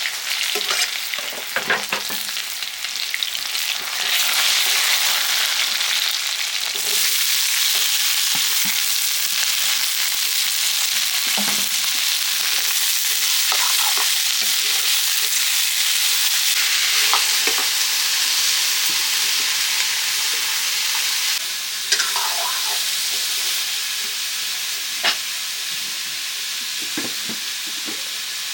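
Food sizzling as it fries in hot oil in a pan, with a few sharp clicks and scrapes of a spoon stirring it.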